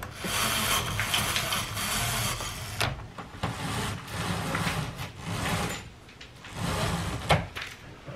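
Sheer curtains being pulled along their overhead rail: several scraping slides of a second or two each, with a sharp click near the end.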